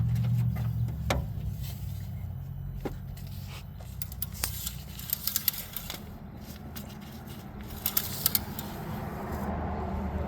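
Metal clinks, scrapes and a jingling clatter of tools being handled, loudest in two short clusters around the middle and about two-thirds of the way in, over a steady low hum that drops a little about a second in.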